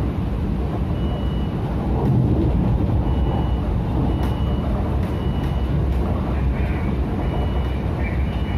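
MTR Tung Chung line train running at speed, heard from inside the carriage: a steady low rumble of wheels on rail. Several short high-pitched tones come and go over the rumble, along with a few light clicks.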